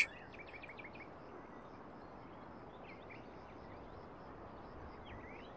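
Faint outdoor ambience with small birds chirping: a quick run of short chirps in the first second, then a few more around three and five seconds in.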